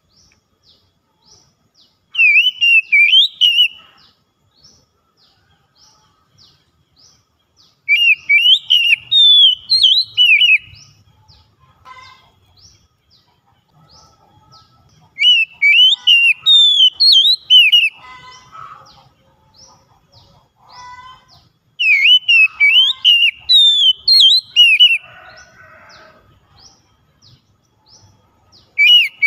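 Oriental magpie-robin singing loud, rapid whistled phrases in four bursts of two to three seconds each, several seconds apart, with another burst starting at the very end. Faint short high ticks come between the bursts.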